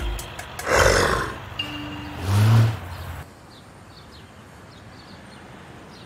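Two loud roar-like animal sound effects, one about a second in and a lower growl about two and a half seconds in, over the tail of background music, which fades away after about three seconds.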